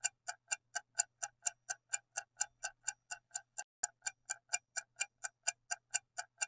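Clock-tick sound effect, about four even ticks a second, used as the countdown while the quiz answer is awaited.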